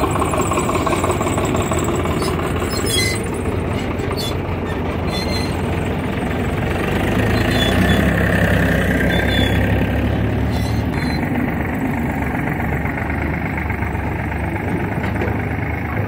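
Tractor diesel engine running steadily, growing louder and heavier for a few seconds around the middle.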